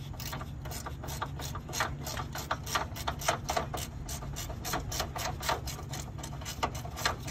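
Ratcheting spanner loosening a condenser mounting bolt: a steady run of sharp clicks, several a second, as the handle is swung back and forth.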